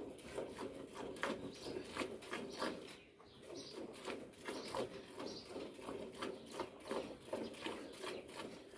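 A cow being milked by hand into a steel bucket: jets of milk squirting into the milk already in the pail, about three squirts a second in a steady rhythm.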